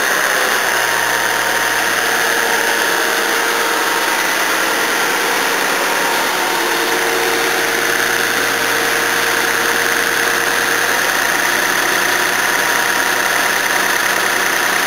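Toyota Cressida's 5M straight-six engine running at a steady fast idle just after starting, still in its cold-start sequence.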